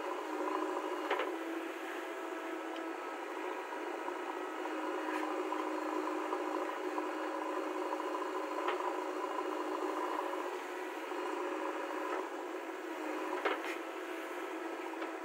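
JCB 3DX backhoe loader's diesel engine running steadily under load as the backhoe arm digs and swings, with a few sharp knocks, about a second in, near the middle and near the end.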